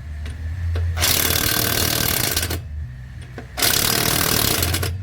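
Electric impact wrench hammering on lug nuts in two bursts of about a second and a half each, over a steady low hum.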